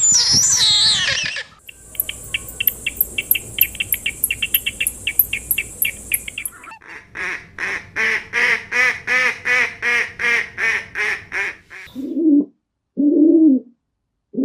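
A run of different bird calls. High gliding calls come first, then a fast high-pitched trill for about five seconds, then a steady series of short calls at about four a second, and near the end two low hoots.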